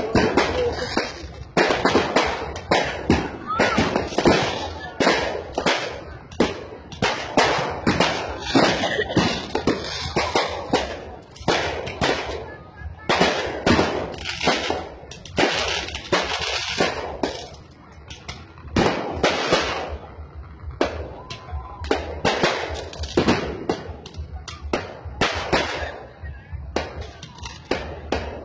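Aerial fireworks going off in a dense barrage: many sharp bangs and crackles in quick succession, easing briefly about two-thirds of the way through before picking up again.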